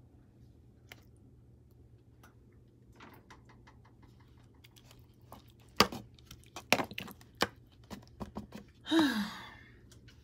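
Ladle tapping and scraping against a disposable aluminium foil pan as meat sauce is spread in it: a run of clicks and knocks, the sharpest about six to seven and a half seconds in. Near the end comes a short squeak-like sound falling in pitch.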